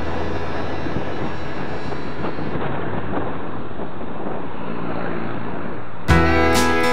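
Steady low rumble with a hissing, wind-like noise over it. About six seconds in, a strummed acoustic-guitar country song starts abruptly.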